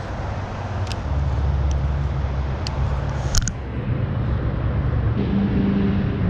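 Low, steady rumble of a motor vehicle's engine going by, growing louder about a second in and again near the end, with a few faint clicks over it.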